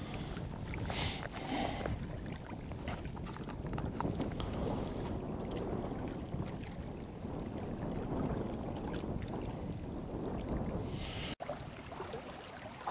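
Wind rumbling on the microphone and small waves lapping against a rocky shore, with a few brief rustles.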